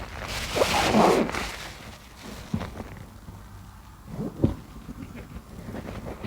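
Wet grout sponges squeaking as they are squeezed and rubbed in sudsy water: squeaky bursts in the first second or so, then quieter, with a short squeak again about four and a half seconds in.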